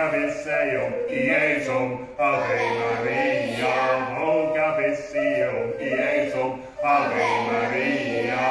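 Medieval bagpipe playing a tune over its steady drone, joined by a small pipe or recorder, in an instrumental passage between sung verses.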